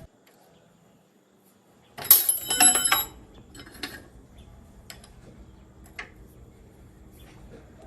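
Metal parts clinking against each other, with a bright ringing for about a second starting about two seconds in, then scattered light metallic clicks and taps over a faint low hum.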